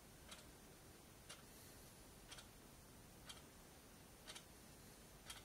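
Faint, regular ticking, one tick each second, over a low background hiss.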